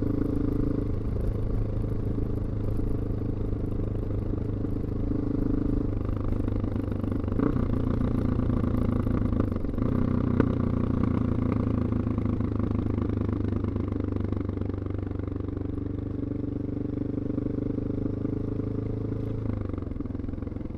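Onboard sound of a 2002 BMW F 650 GS single-cylinder engine with a Scorpion slip-on exhaust, riding under way, its note changing in steps a few times as the throttle and gears change. Two sharp clicks come about seven and ten seconds in, and the note drops near the end as the throttle closes.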